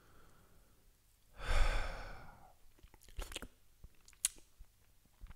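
A man's long breathy sigh about a second and a half in, followed by a few light clicks and taps.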